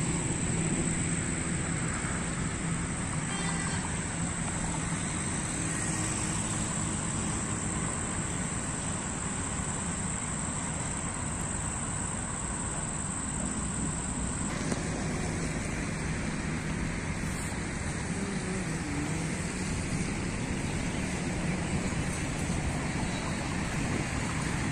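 Steady outdoor background of road traffic and wind noise. A thin, high, steady tone sounds over it and stops suddenly about halfway through.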